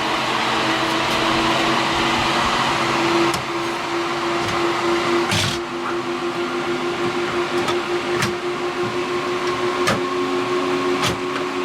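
Dual-processor workstation's cooling fans running at high speed, a steady loud whir with a constant hum, as the machine sits in its BIOS. A few short clicks and knocks come through over it.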